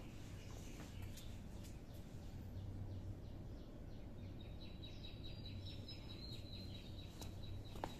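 Faint outdoor background: a steady low hum with scattered faint bird chirps, and a thin high-pitched trill that sets in about halfway through.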